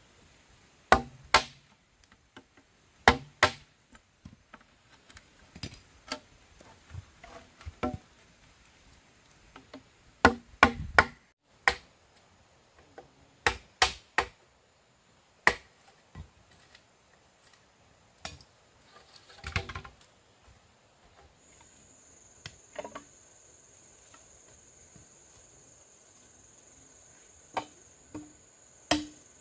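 Machete blade chopping into green bamboo: sharp knocks, often two in quick succession, at irregular intervals. A steady high insect drone comes in about two-thirds of the way through.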